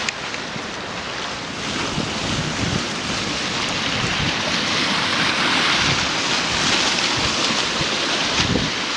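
Storm wind and surf from an unusually high tide breaking near the shore, with gusts buffeting the microphone. The wind swells louder about two seconds in.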